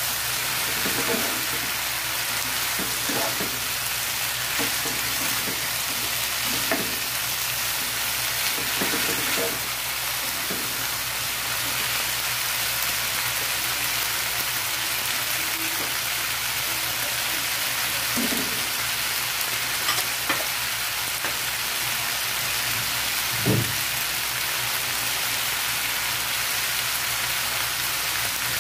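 Long beans and fried tofu sizzling steadily in a non-stick frying pan, with a spatula scraping and tossing them through roughly the first third. Later the sizzle goes on alone, broken by a few single knocks.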